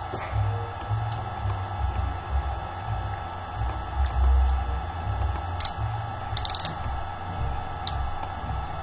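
Clicking and handling noise from a computer being worked: scattered light clicks over low, irregular knocks and rumble, with a quick flurry of clicks about six and a half seconds in.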